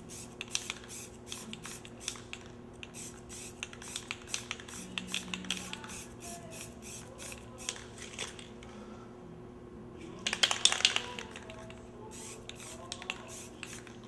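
Aerosol spray paint can sprayed in many short, quick hisses, with a pause and then a longer, louder spray about ten seconds in. A steady low hum runs underneath.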